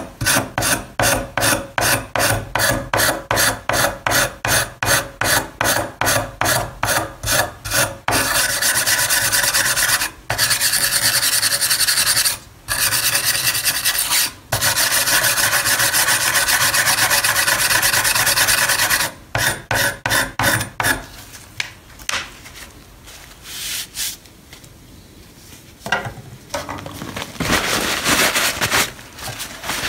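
Metal wire brush scrubbing stubborn rust off a steel knife blade by hand. It starts as quick back-and-forth strokes, about three a second, then runs as one continuous fast scrub broken by short pauses. More strokes come around twenty seconds in, then quieter, patchy rubbing near the end.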